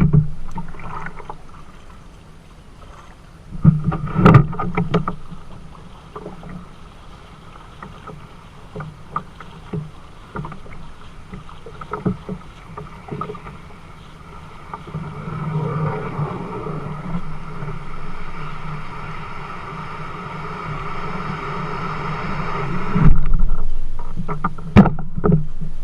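Kayak being paddled: paddle strokes swishing through the water, with occasional knocks, the loudest about 4 s in and near the end.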